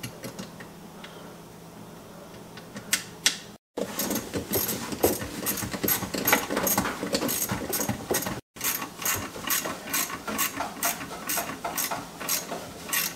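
Bolts on a garbage disposal's discharge-tube flange being tightened: a steady run of quick, sharp metallic clicks, several a second, after a few quieter seconds.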